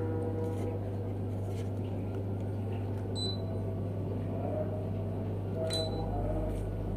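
Sharp mini split air conditioner running with a steady low hum, with two short high beeps about three seconds apart.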